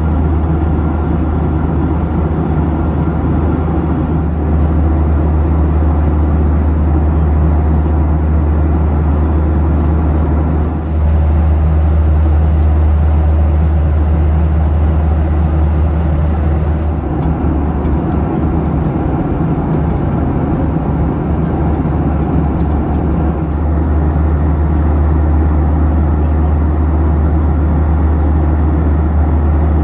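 Steady cabin noise of a Boeing 737 airliner in flight: a strong low hum under an even hiss.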